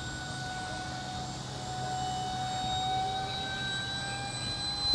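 Radio-controlled model aircraft's motor whining steadily in flight, its pitch rising slowly.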